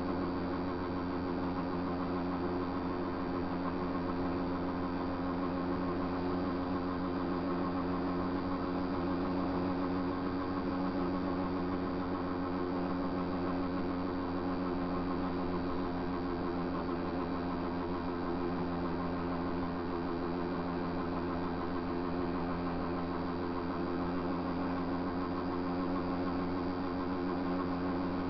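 Small motorcycle engine running steadily at an even cruising speed, its pitch holding level throughout.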